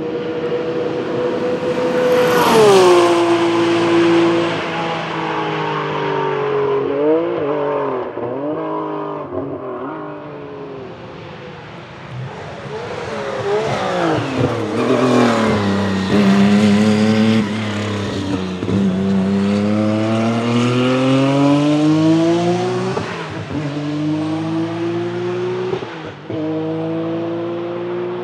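Single-turbo flat-six engine of a 1987 Porsche 962 IMSA GTP race car, loud. Its pitch drops sharply as it passes about two seconds in, then comes a run of throttle blips on downshifts. In the second half it pulls hard from a low note with the pitch climbing steadily, with a gear change near the end.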